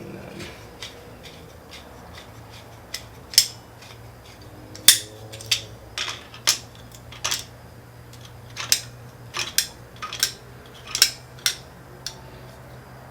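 Metal hand tools clinking and clicking irregularly, about fifteen sharp clinks, as adjustable wrenches and vise grips are set against each other on the camshafts to hold the cams still. A steady low hum runs underneath.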